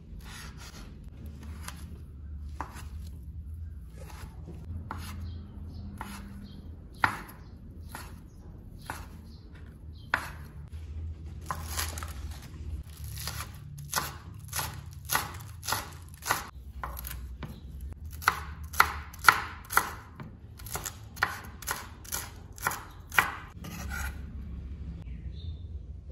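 Chef's knife cutting on a bamboo cutting board: first slow, scattered strokes slicing through a sausage, then green onions chopped in a quick regular run of sharp knocks on the board, about two a second.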